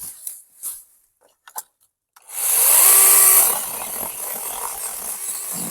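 Cordless 20-volt 6-inch mini electric chainsaw. After a few short handling clicks and rustles, its motor whines up about two seconds in and runs free for about a second. It then cuts into a small tree stem, and the sound turns quieter and rougher as the chain bites the wood.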